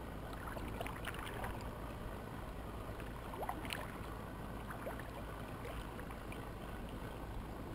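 Kayak paddle strokes in the water, with scattered drips and small splashes over a steady low rumble.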